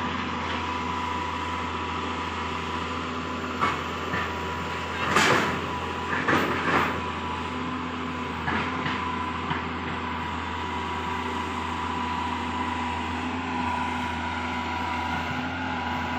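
Excavator's engine running steadily, with a held whine, and a few short clunks and scrapes between about four and seven seconds in.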